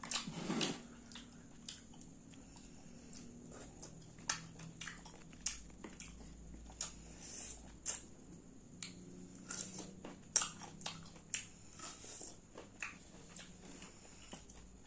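Close-up eating sounds of green mussels and corn in Padang sauce: chewing, with many sharp, irregular clicks and smacks, and a louder burst in the first second.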